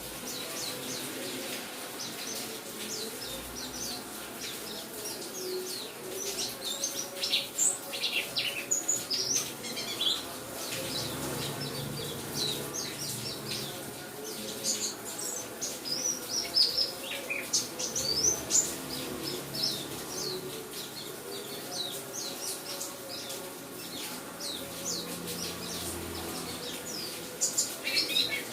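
Pleci buxtoni white-eye singing: rapid runs of short, high, sliding chirps and twitters, coming in bursts throughout, over a steady hiss of rain sound.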